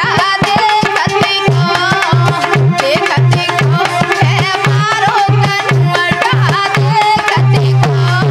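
Indian folk devotional music for dancing: a hand-drum beat with repeated deep bass strokes under a wavering melody line and a steady drone.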